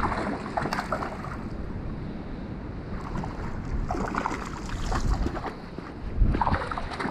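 Running creek water with gusty wind buffeting the microphone, which rumbles louder several times.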